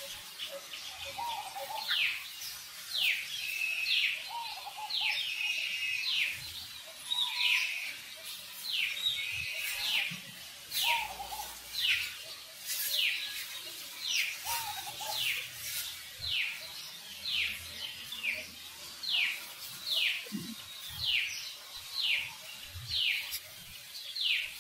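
A bird calling over and over, a sharp chirp sliding quickly downward, about once a second, with a few fainter lower notes from other birds in between.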